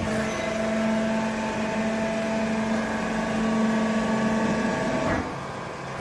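Vertical hydraulic baler's electric motor and hydraulic pump running under load with a steady hum. It comes in with a click as the control button is pressed, and drops back to a quieter idle with a clunk about five seconds in.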